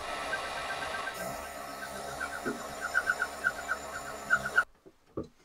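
Tysew bell-knife leather skiving machine running as a piece of waxy oak-bark leather is fed through. From about two seconds in, a run of short chirping squeals rides on the motor sound: wax on the drive (feed) wheel is making it slip. The machine cuts off near the end.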